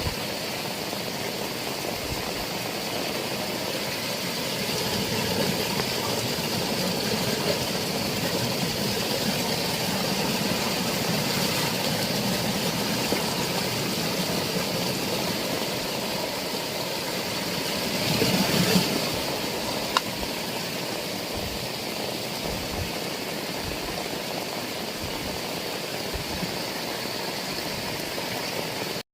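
Heavy rain falling as a steady, dense hiss, swelling louder for about a second near the two-thirds mark, with one sharp click shortly after.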